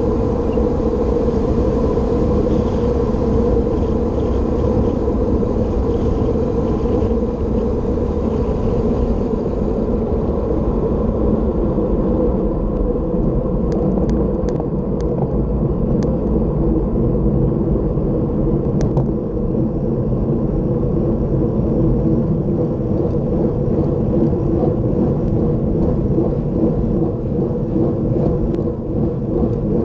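Steady wind rumble buffeting the microphone of a bicycle-mounted camera on a fast downhill run, mixed with tyre noise on the asphalt. A few faint ticks come a little past the middle.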